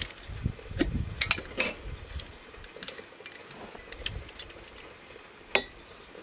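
Whole spices and seeds, such as coriander and mustard seed, shaken from small spice jars into empty glass mason jars: irregular light rattling with scattered sharp clicks and taps of glass. The sharpest click comes a little before the end.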